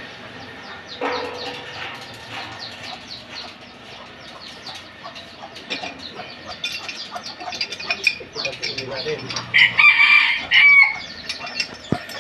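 A rooster crowing once, loudly, about ten seconds in, its call ending in a falling note, over faint rapid clicking.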